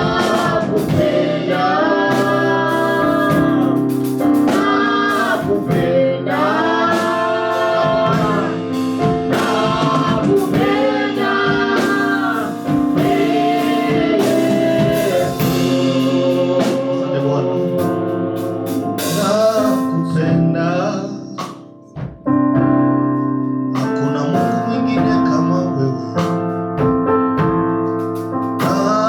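Live gospel worship music: sung melody over held keyboard chords. The singing fades out about two-thirds through, and the music briefly drops away before the keyboard carries on.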